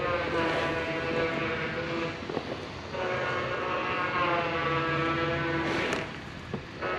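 Train horn sounding long blasts, each a chord of several steady notes lasting about three seconds, with brief breaks between them.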